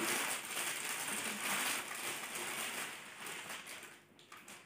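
Clear plastic packaging crinkling and rustling steadily as a folded saree is pulled out of its bag, dying away near the end.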